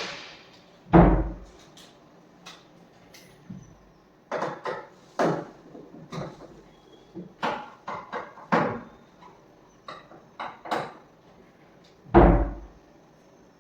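Wooden loft door on newly fitted gas struts being worked open and shut, closing with a heavy thud about a second in and again near the end, with lighter wooden knocks and clicks between.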